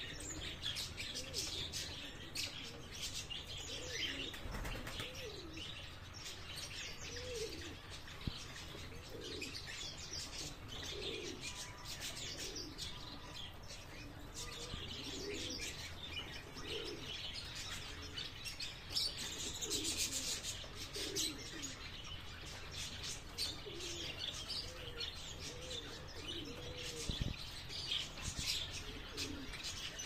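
Fancy pigeons cooing over and over, low rising-and-falling coos, against the dense high chirping of many small aviary birds.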